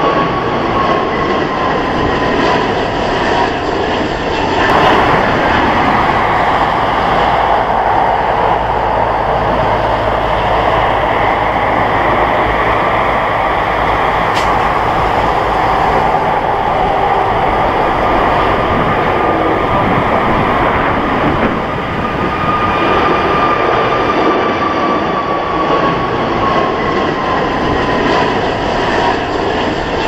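Airbus A321LR jet engines at take-off thrust: a loud, steady jet roar with a high fan whine that slowly falls in pitch. The sound changes abruptly about five seconds in, then the whine returns and falls again near the end.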